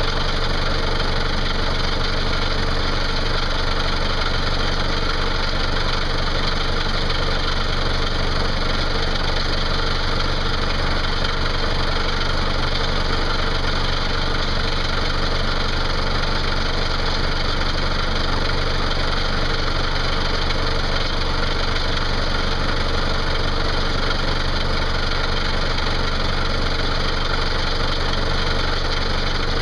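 John Deere tractor engine idling steadily close by.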